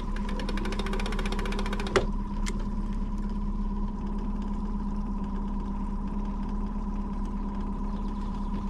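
Outboard motor running steadily while trolling, a constant hum. In the first two seconds there is a rapid run of clicks, ending in a single sharp snap about two seconds in.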